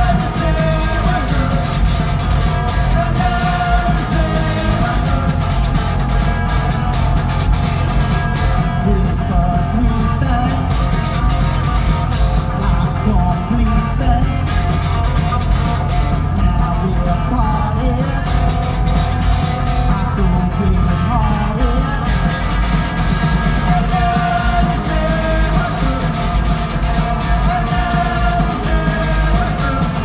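Live rock band playing loud and steady: distorted electric guitars, bass and drums, with a voice singing.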